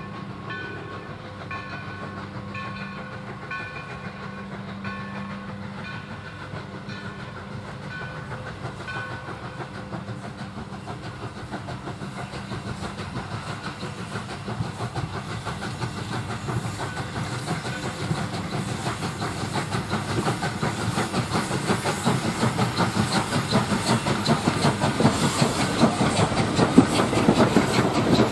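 Steam-hauled passenger train approaching and passing, growing steadily louder. Near the end the coaches roll by close, with wheels clicking over the rail joints.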